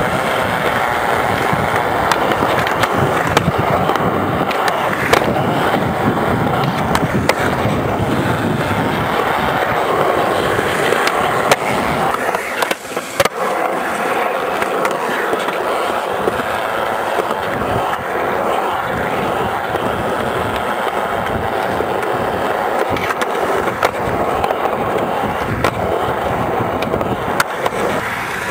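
Skateboard wheels rolling over concrete in a continuous rumble, with scattered clacks from the boards. About twelve seconds in, the low part of the rumble thins out and the sound briefly dips.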